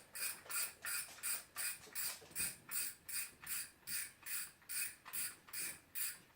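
Wychwood Riot Big Pit 75 fishing reel clicking in a steady rhythm, about three clicks a second, while it is worked with the line tied off.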